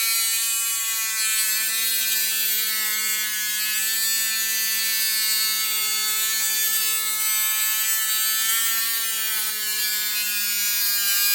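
Dremel Stylo+ cordless rotary tool running at high speed with a steady whine, its steel tile-cutting bit grinding a hole into a seashell. The pitch wavers and dips slightly as the bit bears on the shell.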